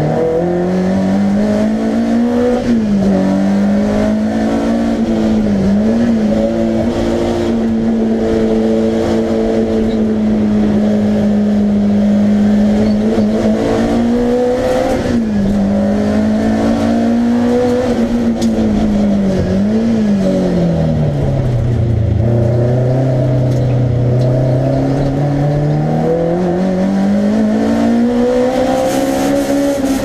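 Alfa Romeo Giulia GTAm race car's four-cylinder engine heard from inside the cockpit while being driven flat out on a circuit. The note holds high and steady for long stretches and dips briefly as the driver lifts off, about 3 s in, again at about 6 s and around the middle. About two-thirds through it drops deeply, then climbs again under acceleration near the end.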